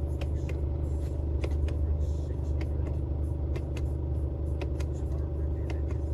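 Scania S450's 13-litre inline-six diesel idling steadily in neutral, heard from inside the cab, with scattered light clicks over the engine note.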